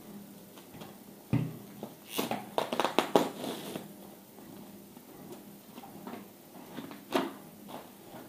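Plastic drawer-organizer dividers and their packaging being handled: a knock about a second in, a run of clicks and rustling for a couple of seconds, then one sharp click near the end.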